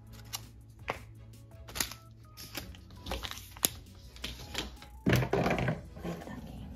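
Background music with light, short notes, over a series of sharp clicks and knocks from the plastic parts and packaging of a home sperm-test kit being handled on a table, with a louder rustle about five seconds in.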